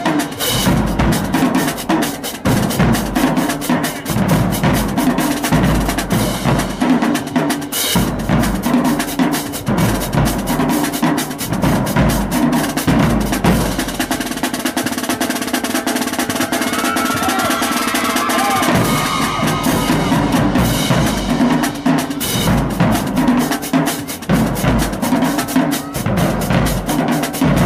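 Marching band drumline playing a cadence: rapid snare drums, bass drums and crash cymbals. The bass drums drop out for a few seconds past the middle, leaving snares and cymbals, then come back in.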